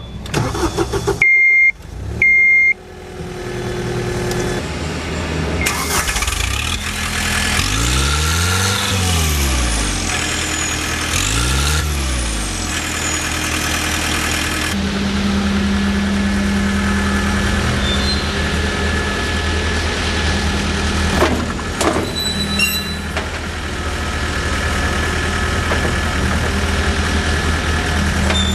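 John Deere 323D compact track loader's diesel engine: two short warning beeps, then the engine cranks and catches and settles to a run. It is revved up and back down twice, then keeps running steadily, with a few clicks later on.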